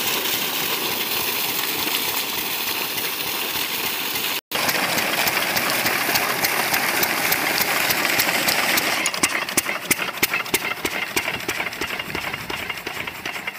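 Single-cylinder stationary diesel engine running steadily, belt-driving a centrifugal irrigation pump, with water gushing loudly from the pump's outlet pipe. The sound cuts out briefly about four seconds in. Over the last few seconds the engine's separate firing knocks stand out as an even beat.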